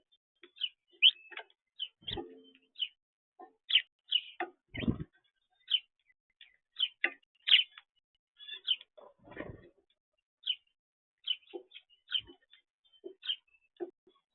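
Birds chirping in many short, high calls, sometimes several a second, with a few lower, longer sounds about two, five and nine seconds in.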